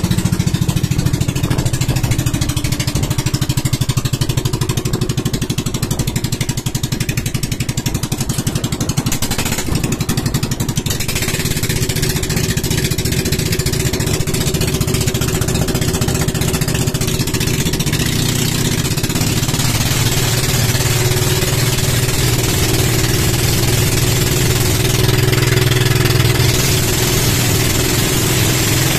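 Twin Honda 16 hp boat engines running steadily at speed, a little louder in the second half, over a steady rush of water and wind.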